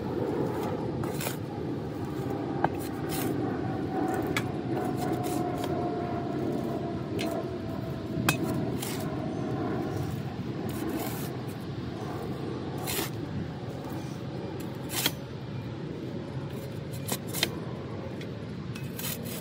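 Shovel digging and scraping through loose garden soil, with the soil tipped into a wheelbarrow. Several sharp knocks come through it, about five in all, as the shovel strikes something hard.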